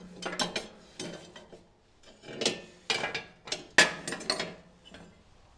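A steel breaker bar clinking, knocking and scraping against an Exmark mower's belt deck and pulleys as it is worked around the tensioner, a string of sharp metal clicks with the loudest knock about four seconds in.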